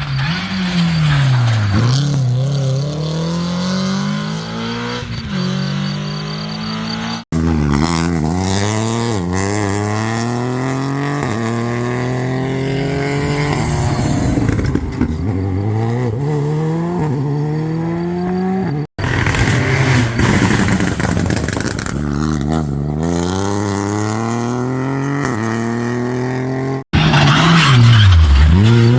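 Rally car engines accelerating hard up through the gears, the pitch climbing with each gear and dropping at every shift. Near the start and again near the end an engine winds down and then picks up again. The sound comes as several short clips with abrupt cuts between them.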